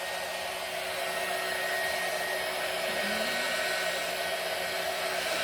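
Electric heat gun running with a steady blowing hiss and a faint steady whine, warming up before being used to cure wrinkle paint.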